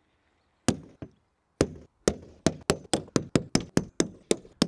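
Hammer tapping a pointed metal tool set in the bolt holes of a fiberglass dodger, marking where each hole goes through the cabin top. A couple of single taps, then a quick run of about five sharp taps a second from halfway in.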